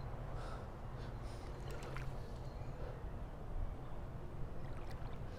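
Steady low rumble with a faint hiss, the outdoor background of a riverbank, with a few faint clicks.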